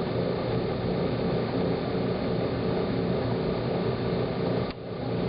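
Hot tub pump motor running with a steady hum, then cut off about four and a half seconds in.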